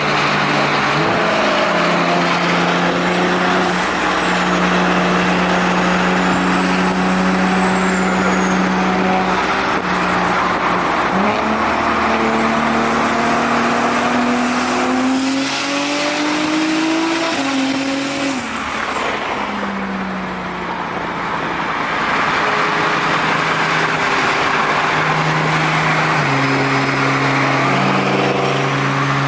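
Car engine and exhaust running under way, holding a steady pitch for stretches and stepping between levels, then rising steadily in pitch for several seconds around the middle before dropping off.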